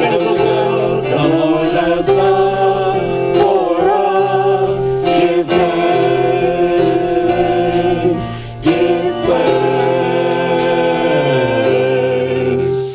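Worship music: voices singing a gospel-style song over steady sustained accompaniment, which ends on a held final chord and cuts off right at the end.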